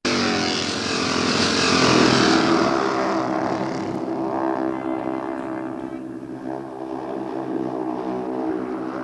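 Speedway motorcycles' single-cylinder engines running hard as the bikes race around the track. The sound is loudest about two seconds in and then slowly fades.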